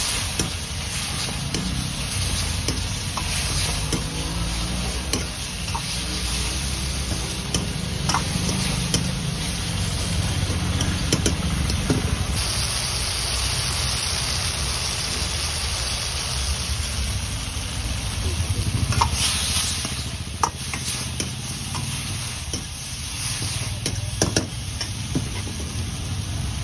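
Chilli chicken in sauce sizzling in an iron wok while a metal ladle stirs and scrapes through it, with sharp clinks of the ladle against the wok now and then. A steady low rumble runs underneath.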